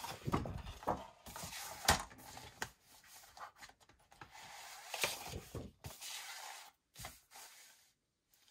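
Manila file folder card being handled on a Fiskars paper trimmer: a string of separate taps and knocks as the card is moved and lined up against the trimmer's ruler, with a stretch of card sliding about halfway through.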